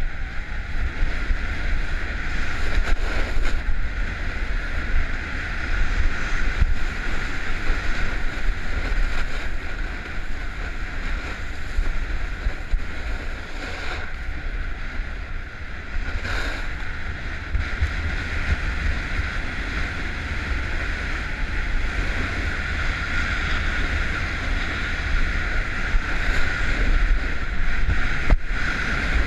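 Wind rushing over an action camera's microphone, with a steady low rumble and the hiss of edges sliding over packed snow as the rider carves down a groomed ski run.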